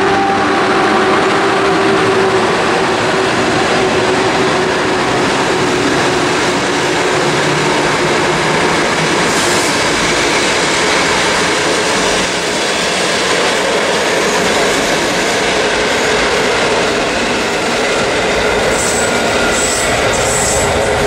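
A locomotive-hauled passenger train passing close by: a loud, steady noise of coach wheels running on the rails. A steady whine sounds in the first couple of seconds, then fades.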